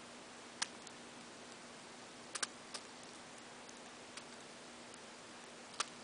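Budgerigar husking seeds with its beak: a handful of sharp, irregular clicks, including a close pair about two and a half seconds in, over a steady faint hiss.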